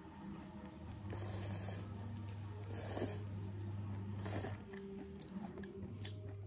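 Close-miked eating sounds: a person chewing and slurping boiled leafy greens into the mouth. There are three short slurps, about one, three and four and a half seconds in, over a low steady hum.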